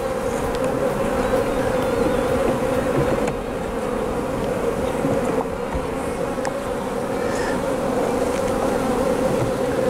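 Honey bees buzzing in a loud, steady hum around an opened beehive.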